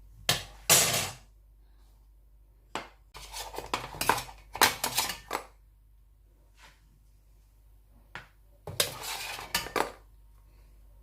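Clattering and knocking of kitchenware in three bursts as the steamed puto are taken out of the steamer.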